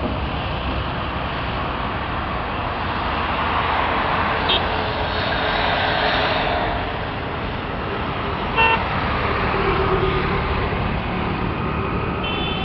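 Highway traffic: a steady rumble of engines and tyres that swells as a vehicle passes about halfway through. Brief vehicle horn toots sound about four and a half seconds in and near nine seconds, and a longer horn sounds near the end.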